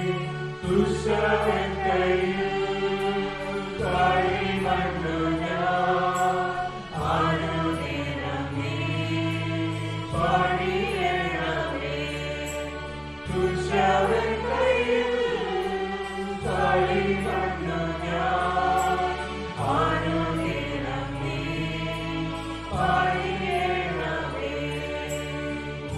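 Church choir singing a Malayalam hymn, over low held accompaniment chords that change every few seconds.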